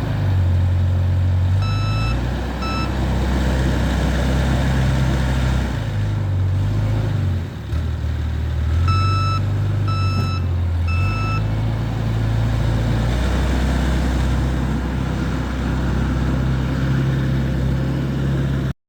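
XCMG SR740RU skid steer loader's diesel engine running under shifting load, its pitch rising and falling as it works. Its reversing alarm beeps twice about two seconds in and three more times around the middle. The sound cuts off abruptly near the end.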